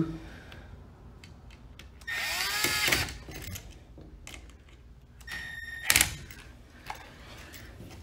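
Cordless drill/driver driving the brass terminal screw of a GFCI outlet down onto the black line wire. It makes two short whirs, one about two seconds in and a shorter one near six seconds that ends in a sharp click as the screw is tightened.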